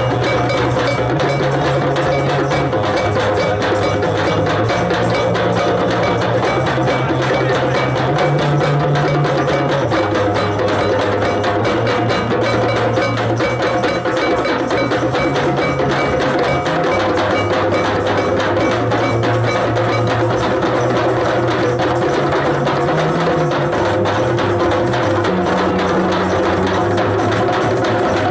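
Djembe circle: a dozen hand drummers striking djembes together in a dense, fast, steady rhythm. A low note sounds underneath and shifts pitch every second or two.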